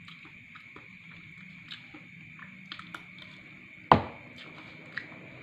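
Close-up eating sounds: a metal spoon scraping and clicking through rice on a paper food wrapping, with small chewing noises. One sharp knock about four seconds in is the loudest sound.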